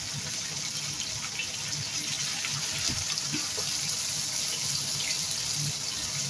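Steady sizzling hiss of a chicken, potato and carrot stew cooking in a pan on low heat, with a few light knocks and scrapes of a spoon and wooden spatula as tomato paste is worked in.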